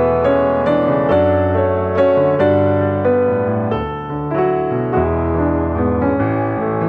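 Background piano music, gentle and steady.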